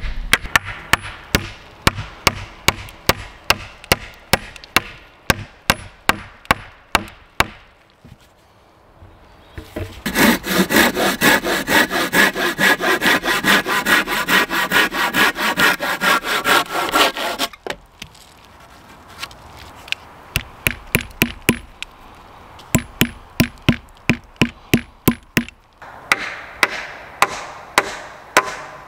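Hatchet blows on a cedar log, quick repeated sharp strikes. About ten seconds in, a hand saw cuts back and forth through a log for some seven seconds. Then the strikes start again.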